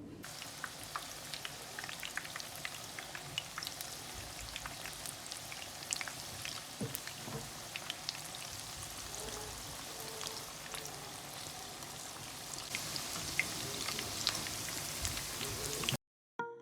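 Spinach and onion pakoras deep-frying in hot oil: a steady sizzle with many small crackles and pops, cutting off suddenly near the end.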